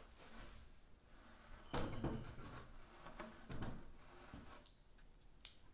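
Plywood panel being shifted and set down on a wooden work bench, with its clamps: two dull knocks, about two seconds in and again a couple of seconds later, with smaller clicks and a sharp tick near the end.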